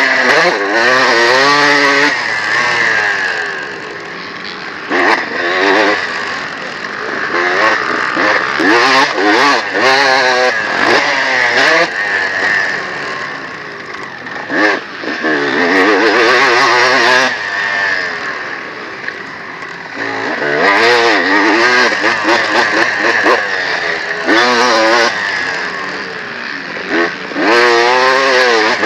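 Honda CR250 single-cylinder two-stroke motocross engine under hard riding: it revs up through the gears and drops back again and again, with the throttle shut off briefly several times.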